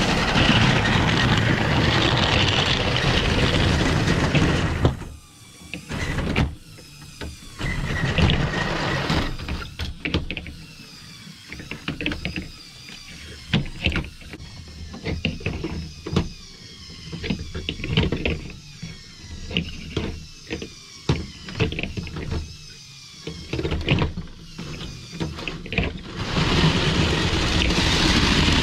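Vintage LEGO 12-volt train running steadily on its plastic track, then a long stretch of short rising whines from the motorized walking AT-AT's small electric motor, about one a second, each with clicking gears, before the train runs again near the end.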